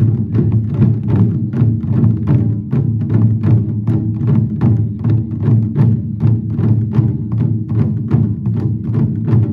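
Taiko ensemble beating large barrel drums (nagado-daiko) together in a steady, driving rhythm of about four strikes a second, with deep booming drumheads.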